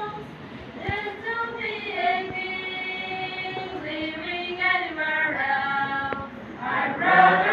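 Youth choir of mixed voices singing a slow worship hymn, holding long notes.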